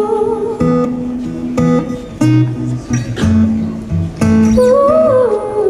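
Live solo guitar strumming chords in separate strokes, with a wordless vocal run gliding up and down near the end.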